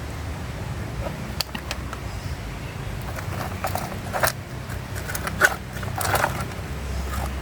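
Plastic toy excavator and dump truck being handled in loose soil: a few scattered clicks, knocks and scrapes over a steady low background rumble.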